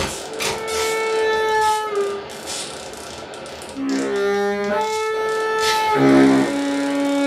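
Free-improvised music for saxophone, synthesizer and turntable: several held pitched tones overlap and jump to new pitches every second or two. A sharp click comes at the very start.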